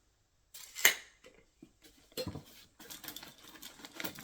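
Small hard tools and packaging being handled: a sharp click about a second in, then scattered clicks, light clatter and rustling.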